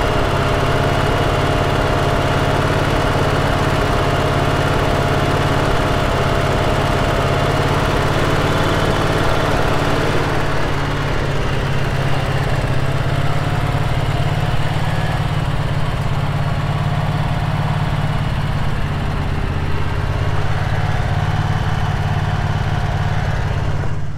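Generac GP15000E 15,000-watt portable generator engine running steadily and loud, freshly electric-started from cold in below-freezing air with the choke pulled. A faint steady whine in the running sound fades about ten seconds in.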